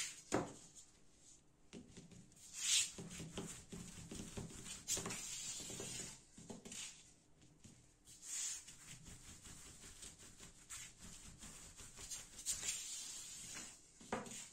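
Long, thin wooden rolling pin (oklava) rolling and rubbing over a thin, floured sheet of yufka dough on a tabletop, with the dough wound around the pin: uneven soft swishes with a few light knocks of wood on the table.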